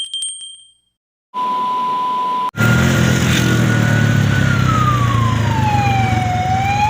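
A chime dies away, a short steady beep follows, then suddenly a loud vehicle rumble with a siren's slow wail, its pitch sliding down and climbing back up near the end.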